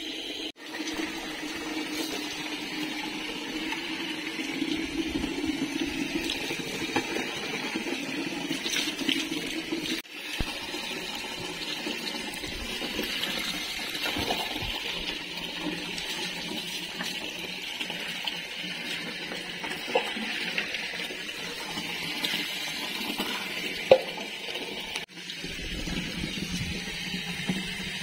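Tap water running steadily into a plastic bucket, with water splashing as it is poured from a mug over a potted croton's leaves. The running water breaks off briefly twice.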